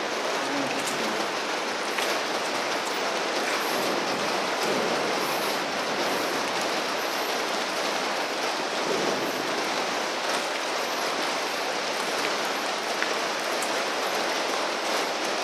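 Steady rain falling on the roof of a large factory building, heard from inside as an even hiss, with a few faint ticks.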